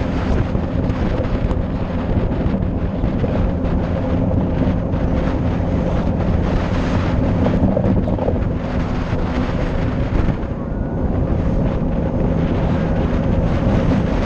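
Engine of the vehicle carrying the camera running at a steady cruise, under heavy wind rumble on the microphone.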